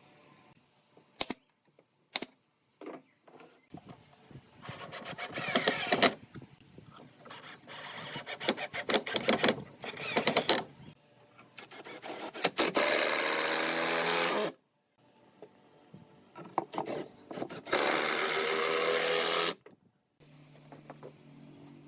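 Woodworking tools on pallet wood: a few sharp knocks, then a power tool running in short bursts of two to three seconds against the wood, its pitch shifting within each run.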